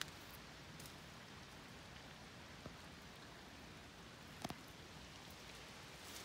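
Faint, steady hiss of falling water, with a few light knocks, the clearest about four and a half seconds in.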